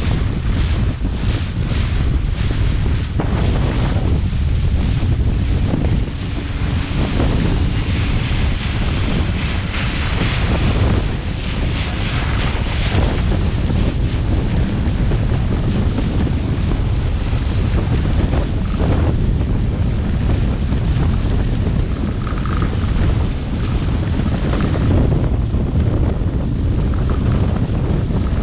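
Wind buffeting the camera microphone on a boat under way, over a steady rush of water along the hull.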